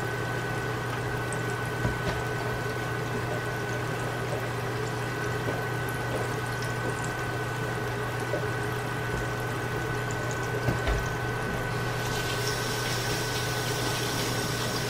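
Floured chicken strips deep-frying in hot oil: a steady sizzle and bubbling with a few small pops, over a steady low hum.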